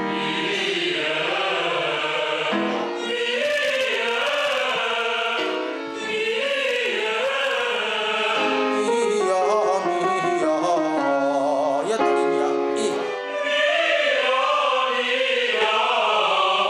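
Opera chorus singing a vocal warm-up together, holding notes in chords that shift in pitch every few seconds.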